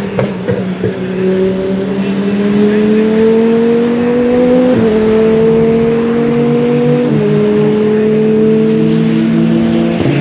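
KTM X-Bow GT2's Audi 2.5-litre turbocharged five-cylinder engine at full throttle, its pitch climbing steadily through the gears with two quick upshifts, about five and about seven seconds in.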